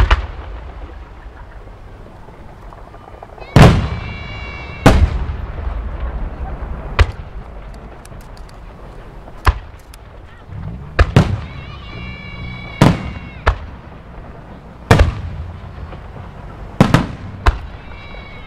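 Aerial firework shells bursting, about a dozen sharp bangs spread unevenly over the stretch, a few coming in quick pairs, each trailing off in a low rumbling echo.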